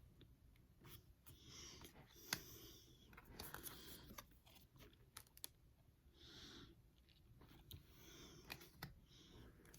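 Faint rustling swishes of Pokémon trading cards being handled and slid past one another, about five times, with soft clicks and taps between them. A sharp tap a little over two seconds in is the loudest sound.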